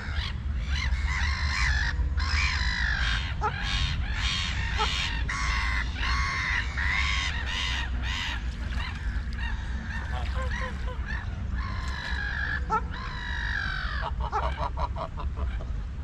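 Waterfowl honking, many calls one after another, with a quick run of short calls near the end, over a steady low rumble.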